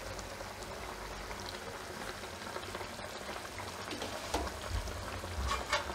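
Watery ridge gourd curry simmering uncovered in a nonstick pan, with a steady soft bubbling and a few small pops near the end.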